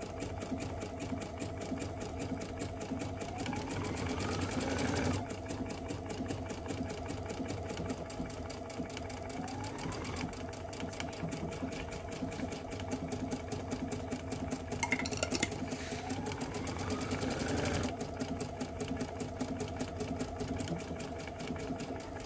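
Computerized sewing machine stitching out an automatic buttonhole with its buttonhole foot, running steadily at a fast, even stitch rate. Three times a whine rises briefly and the sound shifts as the stitching changes sections of the buttonhole.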